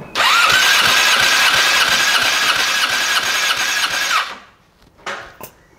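Electric starter cranking the Yamaha R6 RJ11's inline-four engine for a compression test: an evenly pulsing crank with a steady starter whine, lasting about four seconds and stopping abruptly.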